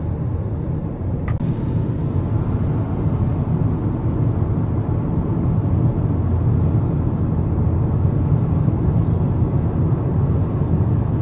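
Steady road noise of a car cruising on the highway, heard from inside the cabin.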